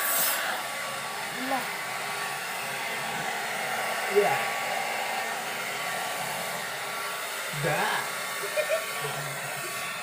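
Handheld hair dryer blowing steadily while drying hair, with a few short voice sounds over it.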